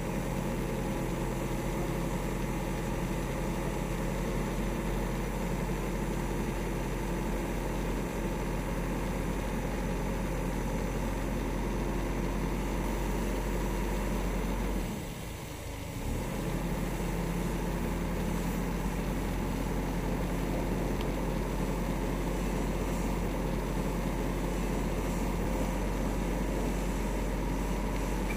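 Isuzu Elf truck's engine running steadily while it powers the hydraulic crane boom of the drill rig. The level drops briefly about halfway through, then the steady running resumes.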